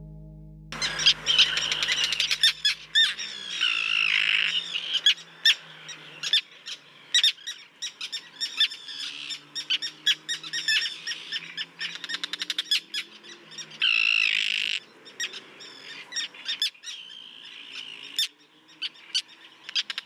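Many common terns calling together: harsh drawn-out cries mixed with a rapid scatter of short sharp calls, overlapping, from about a second in.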